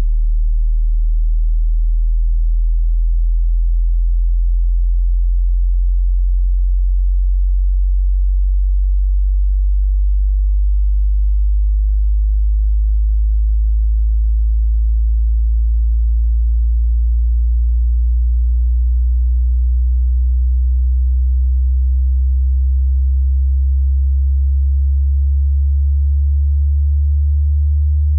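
A hearing-test sine tone, a pure, steady, very deep hum that slowly and smoothly rises in pitch: a frequency sweep through the bottom of the hearing range.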